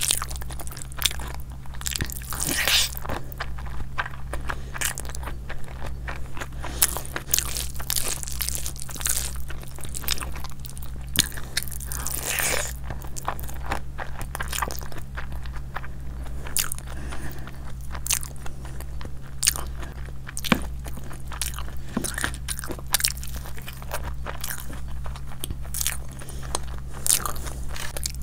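Close-miked eating: chewing and biting food, with many short, sharp crunching and mouth sounds at irregular intervals. A steady low hum runs underneath.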